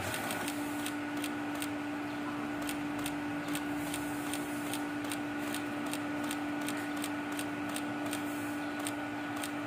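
A steady hum with light, high clicks repeating about twice a second.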